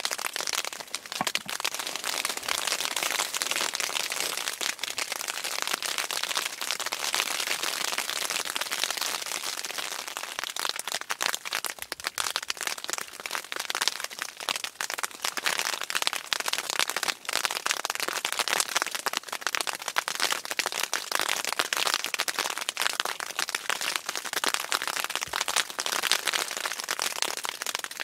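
Sleet and ice pellets hitting the fabric of a pop-up hunting blind: a dense, steady crackle of tiny hits.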